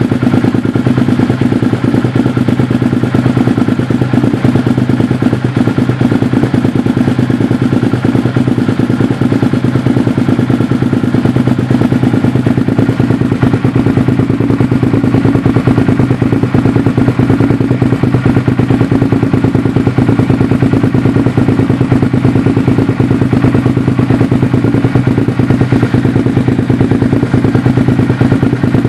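Suzuki SV650S's 645 cc 90-degree V-twin running at a steady idle through a Micron aftermarket slip-on silencer, with an even, unchanging note and no revving.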